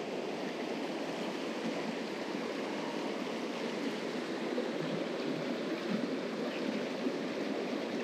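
Mountain stream water running: a steady, even rush of flowing water.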